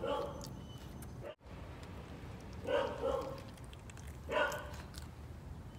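Pet raccoon making a few short calls, three of them spread over several seconds.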